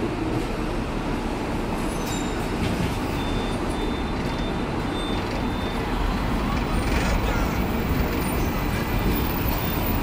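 Hong Kong double-decker electric tram running along its tracks, a steady rumbling ride noise heard from inside the car, growing a little louder about halfway through.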